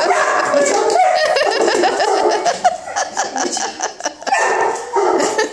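A shepherd-mix dog whining and yipping excitedly while being greeted and petted, mixed with a woman laughing.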